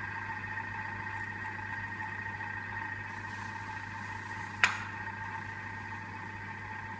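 Vorwerk Thermomix motor running steadily at its slowest stirring speed (0.5), a constant whine and hum as it mixes cake batter. A single sharp click about four and a half seconds in.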